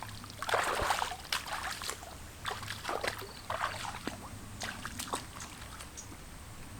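Water sloshing and splashing in several short separate bursts, the strongest about half a second to a second in, with a faint steady low hum underneath.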